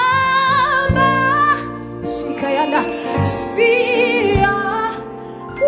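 Female voice singing a slow gospel worship song, holding long notes with vibrato over sustained keyboard accompaniment, with short breaths between phrases.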